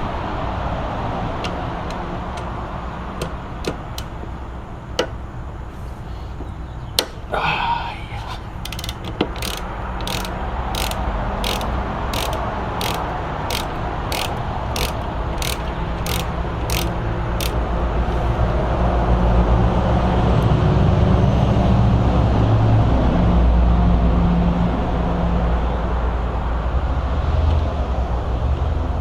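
Ratchet wrench clicking at an even pace, about two clicks a second for several seconds, with a few scattered tool knocks before it. A low rumble swells in the second half.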